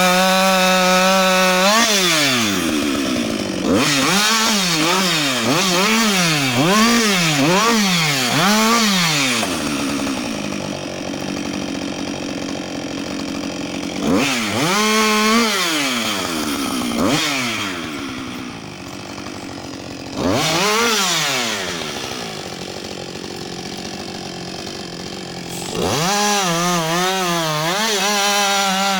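Husqvarna 560XP two-stroke chainsaw cutting into a tree trunk: it runs at high speed in the cut, then its engine speed rises and falls about once a second for several seconds, surges a few more times with slower running in between, and runs at high speed again near the end.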